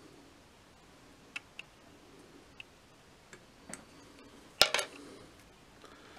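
Small hard items handled at a fly-tying vise: a few faint scattered ticks and taps, then a sharp double click about four and a half seconds in.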